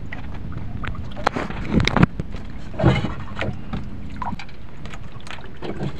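Water slapping against the hull and bamboo outriggers of a small fishing boat, with a steady low rumble underneath and scattered sharp knocks, the loudest about two seconds in.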